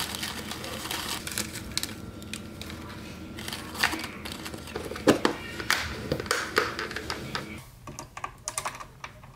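Fluted paper liners rustling and crinkling as they are pressed into plastic food containers by hand, with light taps and clicks of the plastic. The handling sounds thin out near the end to a few separate clicks.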